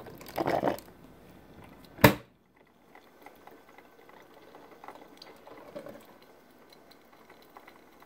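A Mr. Coffee automatic drip coffee maker working faintly as it heats water and starts to brew. Near the start there is a short rustle, and about two seconds in a single sharp click.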